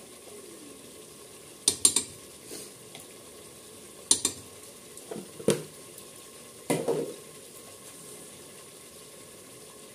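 Spice masala frying in oil in an open pressure cooker with a steady low sizzle. A long metal spatula clinks and scrapes against the pot a few times, at about two, four, five and a half and seven seconds in.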